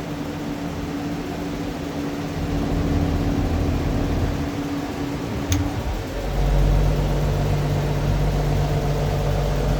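Toyota FJ40 Land Cruiser engine idling steadily. A single sharp click comes about five and a half seconds in, and just after it the hum turns deeper and louder and stays that way.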